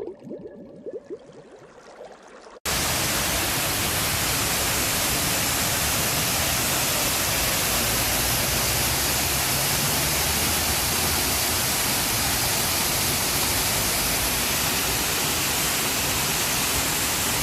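Rocky waterfall, a loud steady rush of falling water that cuts in suddenly about two and a half seconds in, after a quieter start.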